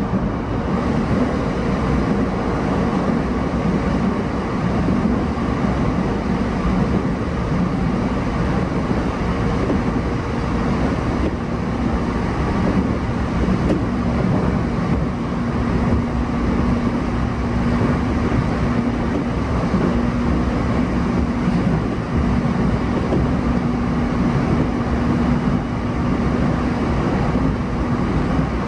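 Running noise of an E233 series electric train at speed, heard from inside the passenger car: a steady rumble of wheels and running gear on the rails. A faint steady hum sits under it for much of the middle and later part.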